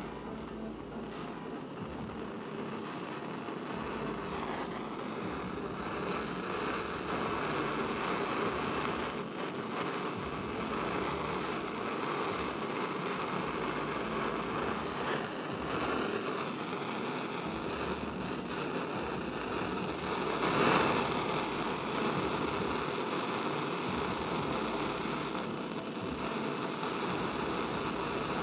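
Jeweller's gas torch burning steadily while heating borax flux on a silver belt buckle to set the pieces before soldering, with one brief louder surge about twenty seconds in.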